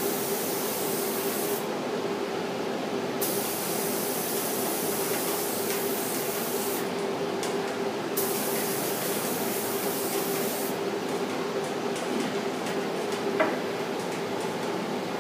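Spray gun spraying finish in three bursts of a few seconds each, with short pauses between; after about eleven seconds the spraying stops. A steady machine hum runs underneath, and a single click comes near the end.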